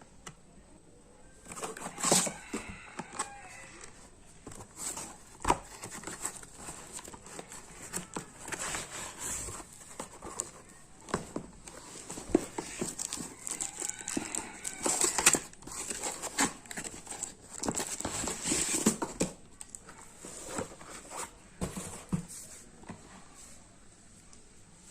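Delivery packaging being torn open and crinkled by hand: irregular rustling, ripping and sharp crackles, dying down well before the end to faint handling.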